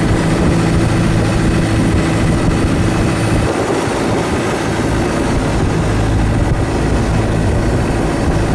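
Thai longtail boat's engine running loud and steady under way; its note changes about three seconds in.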